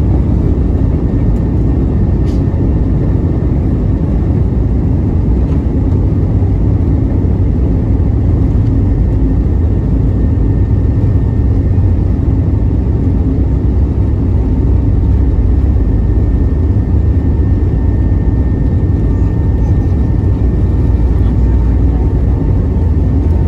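Cabin noise of an Airbus A320neo rolling on the runway: a steady low rumble of the engines and airframe, with a faint steady high whine.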